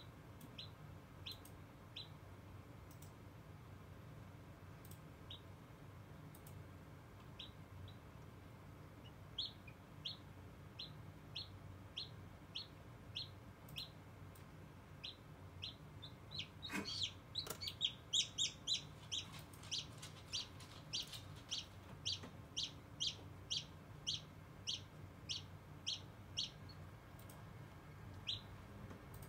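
Hatching chicken chick peeping: short, high peeps, scattered at first, then coming about twice a second, loudest about two-thirds of the way in. A steady low hum runs underneath.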